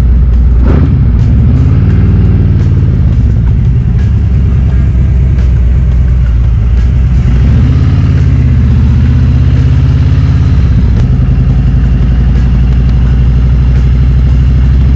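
Motor vehicle engine running under way, its pitch rising as it accelerates about a second in and again around eight seconds in, then dropping at about eleven seconds.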